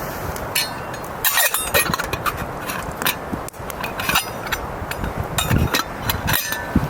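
Irregular light knocks and clinks, some with a brief metallic ring, over a steady low background hiss.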